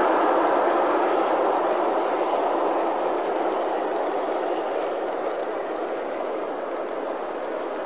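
G-scale model freight cars rolling past on garden railway track: a steady rumble of wheels on rail that grows gradually quieter, with faint clicking.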